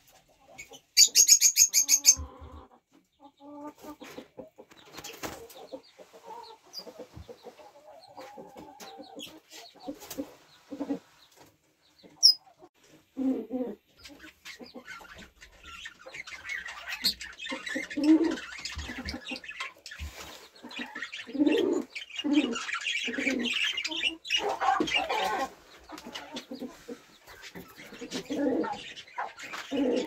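Budgerigars chattering and warbling, with hens clucking at intervals underneath; a loud shrill squawk about a second in.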